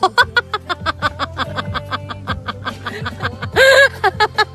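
A person laughing hard in a rapid, high-pitched run of snickers, over steady background music. A louder burst of laughter comes about three and a half seconds in.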